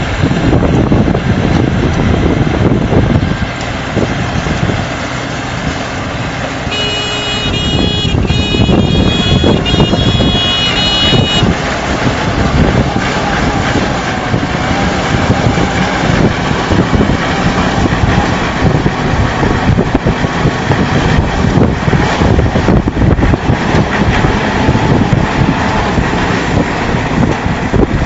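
Round baler and its tractor running, a loud steady mechanical din. From about seven seconds in, for some four seconds, a high pulsing tone sounds over it.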